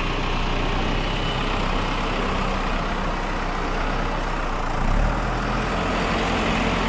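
Farm tractor's diesel engine running steadily, with its note shifting and a brief louder surge about five seconds in.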